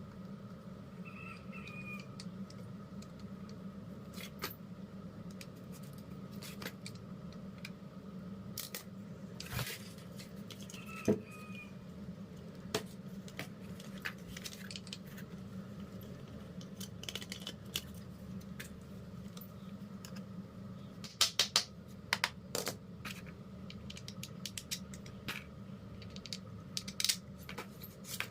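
Small metal tools and parts clicking and clinking as they are handled, in scattered taps with a quick cluster of louder clicks about three quarters of the way through, over a steady low hum.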